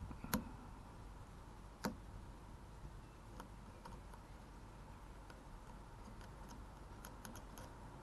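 Faint, scattered metallic clicks and ticks from a car lock pick working the wafers of a car door lock, one at a time. The two sharpest clicks come just after the start and just before two seconds in, and a small run of light ticks comes near the end.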